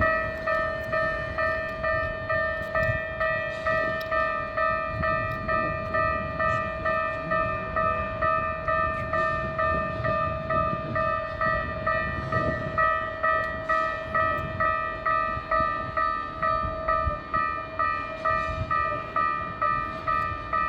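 Japanese railway level-crossing warning bell, the electronic clanging alarm, ringing steadily at about two strikes a second, with a low rumble underneath.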